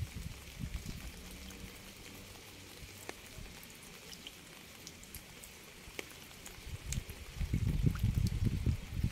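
Rain falling steadily: an even hiss with scattered sharp drop ticks. An uneven low rumble fades out after about a second and builds up again from about seven seconds in.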